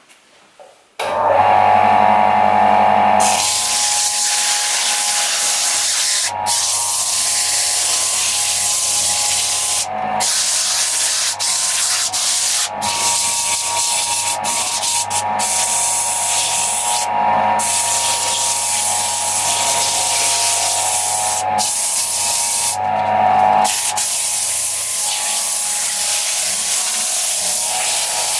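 Sandpaper held against a pine-and-walnut vase spinning on a wood lathe: a steady, loud sanding hiss over the lathe's motor hum. The hiss starts about a second in and drops out for a moment several times as the paper is lifted off and moved.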